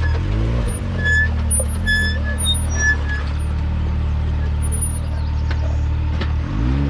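Side-by-side UTV engine idling, blipped up and back down once just after the start, then revving up and holding a higher speed near the end. A few short, high chirps sound between one and three seconds in.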